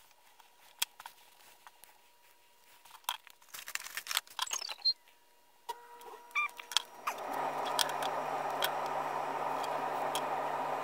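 Small metal clicks and clinks of a rotary leather hole punch and snap or rivet hardware being handled on a workbench. About seven seconds in, a steady hum with a hiss starts and keeps going.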